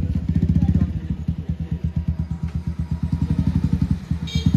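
Bajaj Pulsar 150's single-cylinder engine idling through an aftermarket Akrapovic silencer with the dB killer taken out: a loud, even exhaust popping, about a dozen beats a second. It settles from a rev at the start and picks up again at the very end.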